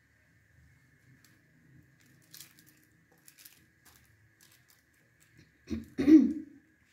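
Faint squishing and rustling of masala-coated potato wedges being spread by hand in a foil-lined metal baking tray, with two louder bumps near the end.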